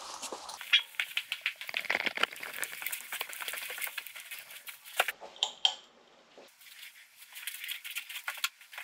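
Footsteps and clothing rustle of a person walking and climbing carpeted stairs, with irregular light knocks and rubbing close to the microphone; the sounds ease briefly about six seconds in.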